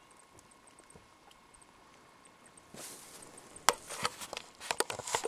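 Quiet outdoor background with a few faint high ticks, then rustling and a run of sharp clicks and cracks over the last two seconds or so, the loudest about three and a half seconds in.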